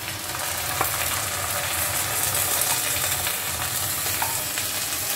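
Onions and chilli powder sizzling steadily in oil in a steel wok over a low gas flame. Two light taps come through, about a second in and near the end, as ground poppy seeds are tipped in from a steel container.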